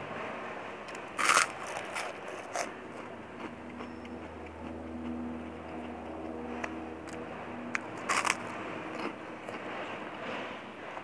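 Loud crunches of biting into a crispy white cracker, once about a second in and again near the end, with smaller crackles and soft chewing between. A low hum rises and fades in the middle.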